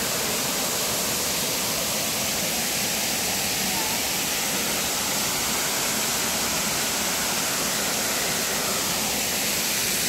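Waterfall pouring over stepped rock ledges: a steady, even rush of falling water.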